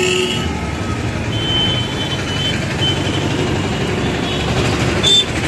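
Busy market-street traffic: a steady low rumble of motor vehicles. A vehicle horn ends just after the start, thin high beeps come a second or two in, and there is a brief sharp sound near the end.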